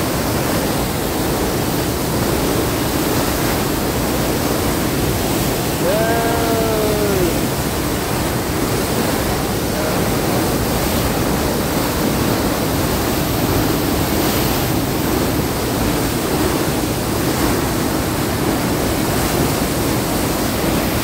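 Dam outlet water rushing and churning through a concrete outflow channel as turbulent white water: a loud, steady rush.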